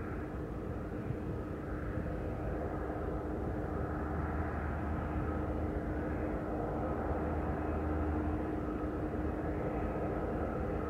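Distant diesel freight locomotives running, a steady low rumble with a constant hum, slowly growing louder as a train approaches.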